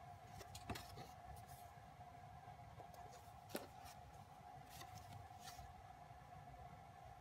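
Faint rustling and light clicks of glossy printed photo cards and paper sheets being handled and shuffled, with two sharper taps, one under a second in and one about halfway through, over a faint steady hum.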